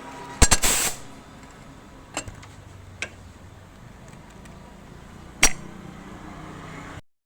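Sharp knocks of metal on metal over a low steady hum: a quick cluster of hits about half a second in, two lighter taps around two and three seconds, and one loud knock about five and a half seconds in. The sound cuts off just before the end.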